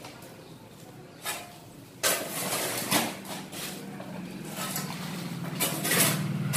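Borewell drilling rig's engine starting up about two seconds in, then running steadily and getting louder. A short knock comes about a second in.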